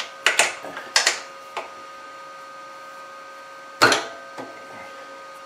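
Sharp metallic clunks and clicks as the milling machine's gearing is shifted out of back gear: several in the first second and a half, then one louder clunk just before four seconds, over a steady faint hum.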